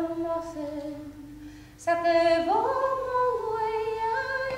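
A woman singing unaccompanied, holding long notes; the singing fades briefly, then comes back louder about two seconds in with a rising glide into a high held note.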